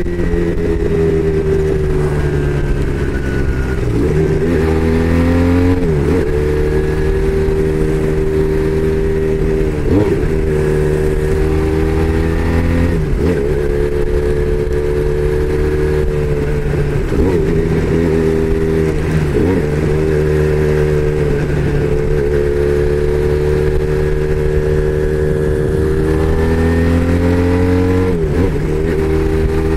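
Braaap Moto4 motorcycle engine under way, its pitch climbing and then dipping sharply about eight times as the revs rise and fall between steady stretches.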